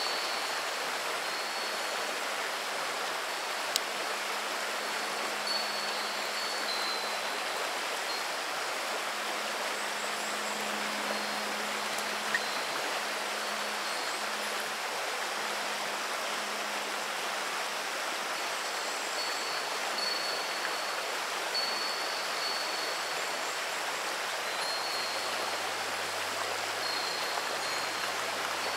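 Shallow river running over a pebble bed: a steady, even rush of water, with a faint high tone coming and going.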